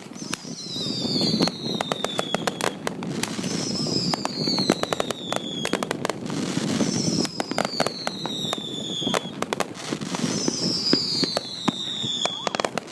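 Fireworks going off: dense crackling pops throughout, with a falling whistle about every three seconds.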